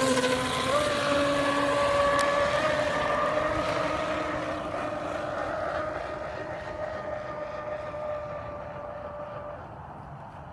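Pro Boat Zelos 48 RC catamaran's twin brushless electric motors whining at full speed over the hiss of water spray. The pitch steps up slightly about a second in, then the sound fades steadily as the boat runs away, and the whine dies out near the end.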